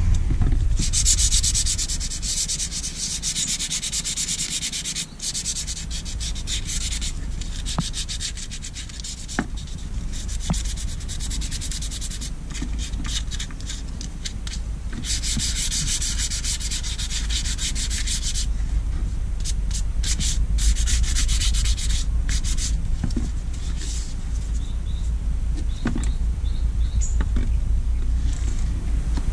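Rapid back-and-forth rubbing strokes on the leather of a knife sheath, as in sanding or burnishing it by hand. The strokes come in long stretches, the loudest from about a second in to seven seconds and again from about twelve to eighteen seconds, over a steady low rumble.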